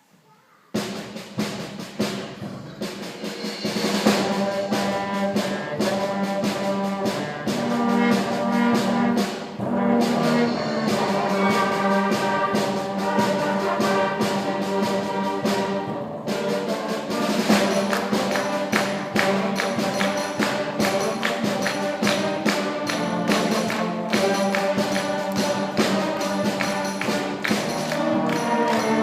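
Middle school concert band starting to play about a second in: sustained brass and wind chords over a steady percussion beat with tambourine.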